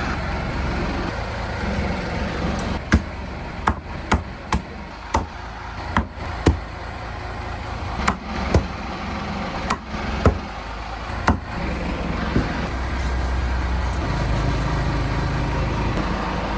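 A steady low engine drone, with about a dozen sharp, irregular knocks from about three seconds in to about eleven seconds in.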